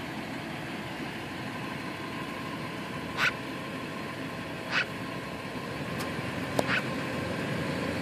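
A magpie giving three short, harsh calls a second or two apart, over a steady background rumble, with a sharp click just before the third call.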